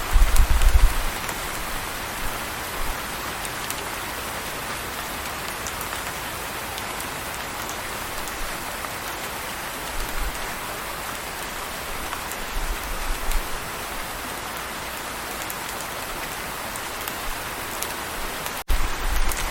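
Steady rain falling, an even hiss of drops, with a few brief low rumbles underneath. Near the end the sound drops out for a moment, then returns with a stronger low rumble.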